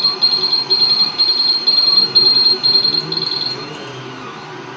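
DIY filament runout sensor's buzzer beeping a high-pitched alarm in rapid bursts, about two bursts a second, then stopping a little past three seconds in. It signals that the filament has stopped moving through the sensor for 20 seconds because it has been cut.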